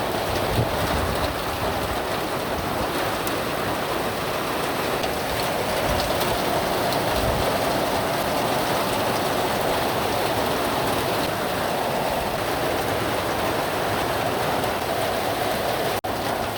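Heavy tropical downpour, rain falling steadily and evenly with scattered drop ticks.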